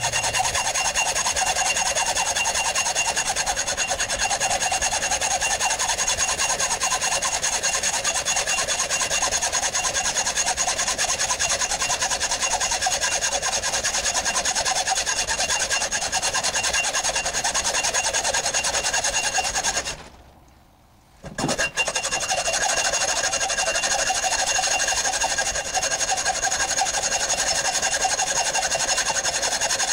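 Hacksaw cutting through a steel 12-gauge Mossberg 500 shotgun barrel: a fast, steady back-and-forth rasp with a high metallic ring. The sawing stops for about a second and a half about two-thirds of the way through, then carries on.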